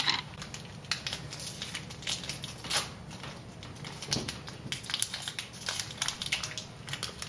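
Irregular crinkling and crackling of a foil protein-bar wrapper being handled, with a bite of the almond-and-honey bar being chewed.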